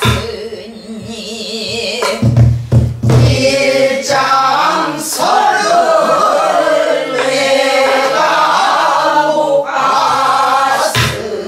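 Pansori singing with wide vibrato, accompanied by a buk barrel drum struck with a stick and the palm. A cluster of deep drum strokes comes about two seconds in, with single strokes later.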